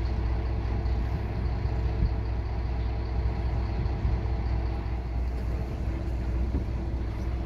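Boat engine running steadily: an even low hum with faint steady higher tones.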